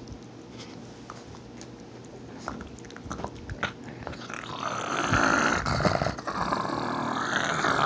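Pug growling to guard its toy chew bone from a hand reaching near it: a few faint clicks at first, then about four and a half seconds in a loud, raspy growl that holds to the end.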